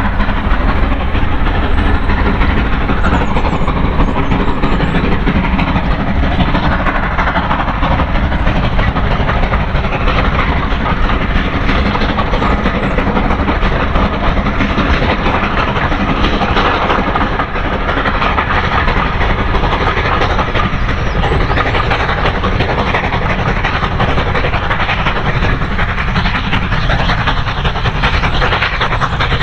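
Steam-hauled train running past, a steady loud rolling noise of wheels on the rails.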